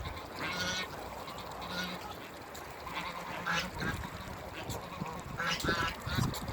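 Domestic waterfowl, geese and ducks, calling in short separate calls, about four to five over a few seconds.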